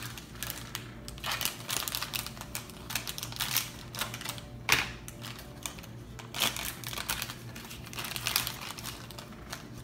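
Crinkling of a foil My Little Pony blind bag as it is handled and cut open with scissors, in irregular rustles and clicks, with one sharper snip-like click about halfway through.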